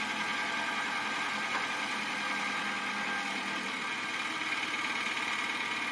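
Engine idling steadily, an even, unchanging running sound.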